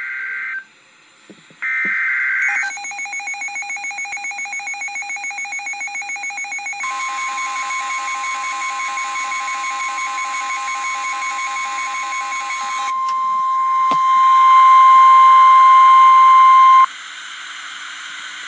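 Emergency Alert System tones: two short bursts of the buzzy digital header screech, then a rapidly pulsing alarm tone. A steady high tone, the NWS 1050 Hz warning alarm, joins in, carries on alone and louder, and cuts off suddenly about 17 seconds in, leaving a faint hiss.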